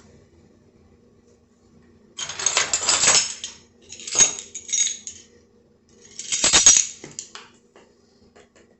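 Kitchen clatter from measuring out dried oregano: three bursts of a spoon clinking and scraping against a container. A faint steady hum runs underneath.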